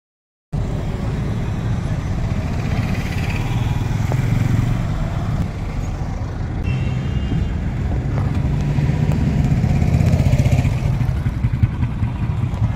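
Motorcycle engine running with a steady low throb, swelling a little twice.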